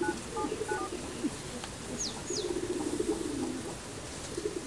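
Mobile phone keypad tones as a number is dialled: several short two-note beeps in the first second. Doves coo repeatedly in the background, with two quick high bird chirps about two seconds in.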